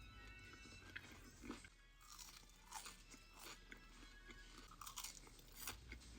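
A person chewing crunchy fast food close to the microphone, with a series of separate crisp crunches at irregular intervals.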